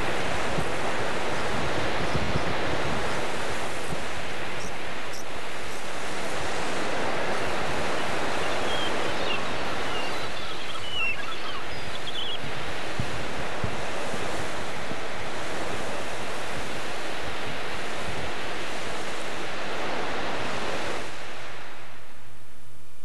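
Ocean surf washing onto a beach, a steady rush of waves, with a few faint high chirps about halfway through. The surf cuts off near the end.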